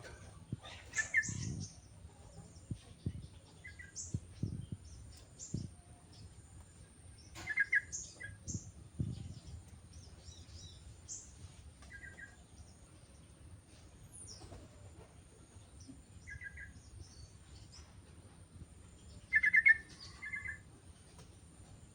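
Sooty-headed bulbul calling: short bubbly phrases repeated every few seconds, the loudest near the end, with thin high chirps in between.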